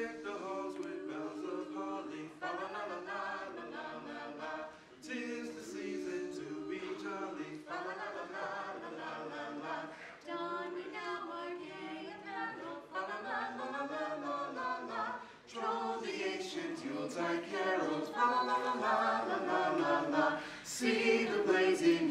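An a cappella choir singing a Christmas carol in phrases, with short breaks between them.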